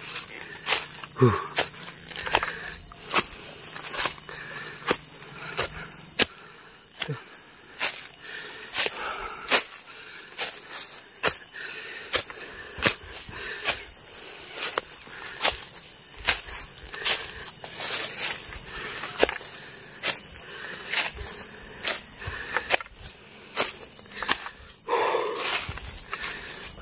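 Footsteps of a man walking under a basket load of durians, a short crunch about once a second, over a steady high insect drone.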